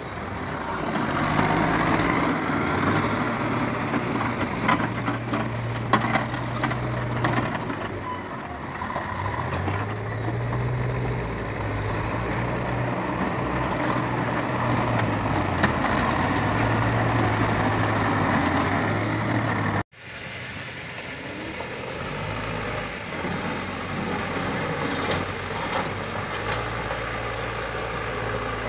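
Diesel engines of backhoe loaders running and revving up and down under load as they dig and push soil, with a few sharp knocks. The sound drops out for a moment about two-thirds of the way through, then the engine sound resumes.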